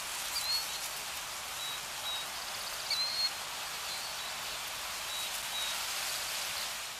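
Outdoor nature ambience: a steady, even hiss, with short bird chirps now and then.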